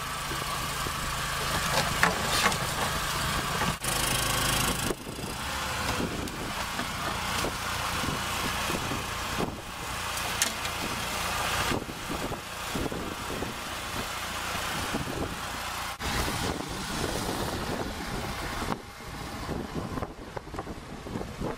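Small engine running steadily, a low even hum under a noisy wash, with several sudden breaks in the sound.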